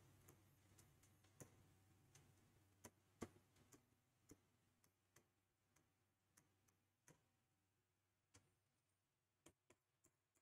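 Near silence with faint, irregular sharp clicks, about one or two a second: a marker pen tapping and ticking against the board as numbers and commas are written.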